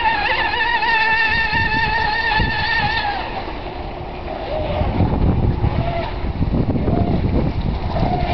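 Brushless electric motor and propeller of a 12-cell radio-controlled catamaran hydroplane at speed: a high, wavering whine that fades about three seconds in as the boat draws away. Low rumbling noise fills the middle, and the whine returns, rising, near the end.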